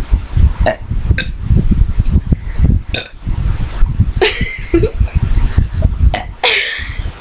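Girls burping after gulping fizzy Sprite: a few short sounds in the first three seconds, then two bigger burps about four and six and a half seconds in, the second falling in pitch. A steady low rumble runs underneath.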